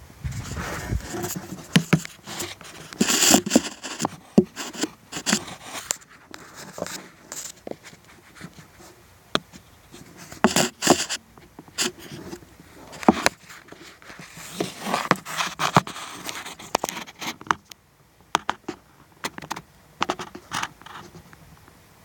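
Irregular scraping, rustling and sharp clicks of a person reaching about among attic joists and insulation, mixed with handling noise on the camera, with busier stretches about 3, 11 and 15 seconds in.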